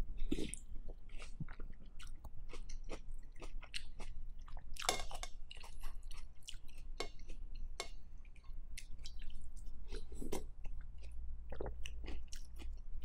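Close-miked eating sounds: pho broth sipped from a large spoon, with chewing and many small mouth clicks and smacks. A spoon stirs in a glass bowl in between.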